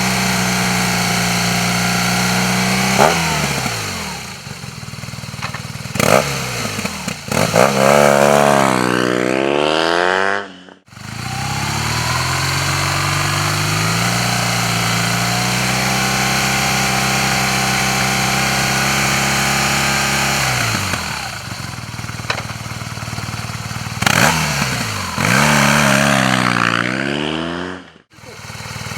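Air-cooled BMW R 1200 GS boxer twin running through an aftermarket exhaust, in two passes: held at a steady raised rpm, let off, blipped a few times, then revved up in a rising sweep before cutting off suddenly. The first cut comes about 11 seconds in, the second near the end.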